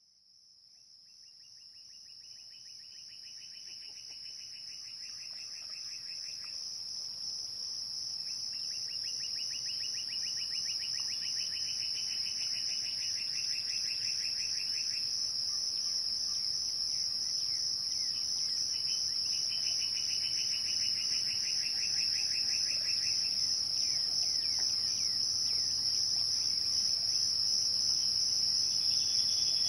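Insects singing: a steady, high-pitched whine that fades in, with a lower rapid pulsing trill that comes in three times for several seconds each.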